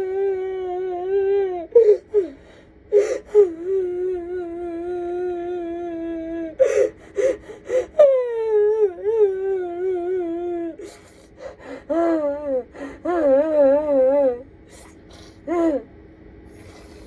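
A woman wailing and sobbing hard: long, drawn-out, wavering cries broken by sharp gasping breaths. About halfway through, the cries turn shorter and choppier, and they die down near the end.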